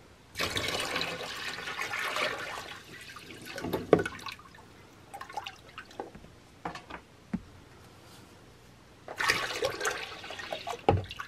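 Water poured from a plastic jug into an empty plastic tote, splashing for about four seconds, while the tote is being filled with hydroponic nutrient water. A few light taps follow, and a second pour starts about nine seconds in.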